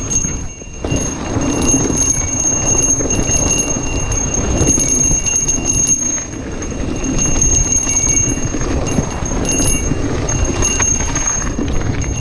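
Santa Cruz Heckler mountain bike riding fast down a rough dirt forest trail: continuous tyre rumble and rattling of the bike over the bumpy ground, briefly dipping about half a second in.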